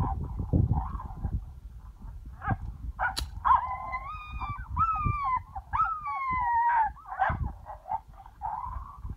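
Coyote howls and yips: short yips, then a run of drawn-out wavering howls in the middle, the last one falling in pitch, then more yips. Wind rumbles on the microphone, and a sharp click comes about three seconds in.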